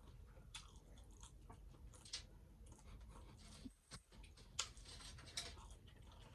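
Faint chewing and crunching of hard taco shells, with a few sharper crunches spread through.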